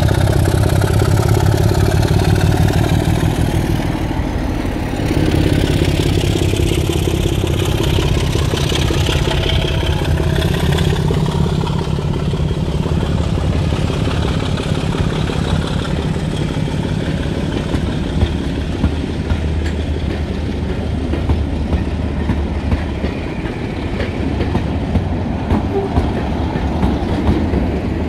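A train running along the track: a steady low rumble with wheel clatter, and sharp clicks every second or two through the last third.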